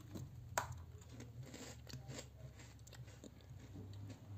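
Faint crunching and chewing of a crisp multi-millet jaggery cookie, with one sharp click about half a second in and irregular small crunches after it.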